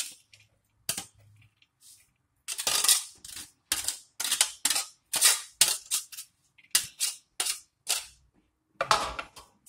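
Plastic colander knocked and shaken against a glass bowl to empty out drained shredded cabbage and carrot: a string of sharp knocks, about three a second, beginning a couple of seconds in.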